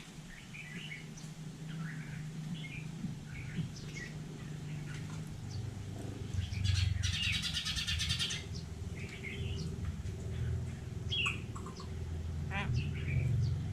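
Hill myna calling: short scattered chirps and whistles, with a harsh rasping screech lasting nearly two seconds about halfway through, over a low steady hum.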